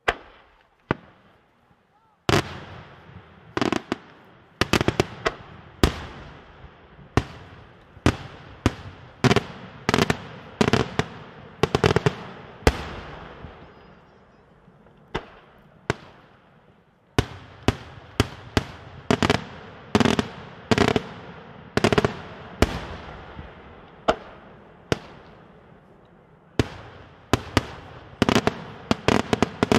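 Daytime aerial fireworks shells bursting overhead: loud sharp bangs in quick, irregular succession, one or two a second, each trailing off in a rumbling echo. A brief lull about halfway through, then the volley resumes.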